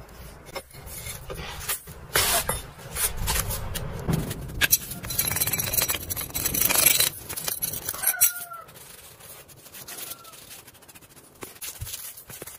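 A knife blade and gloved hands scrape and scratch packed casting sand off a freshly cast metal sword in its sand mould, with short metallic scrapes; the scraping is loudest in the middle and eases off after about eight seconds. Near the end a chicken clucks twice.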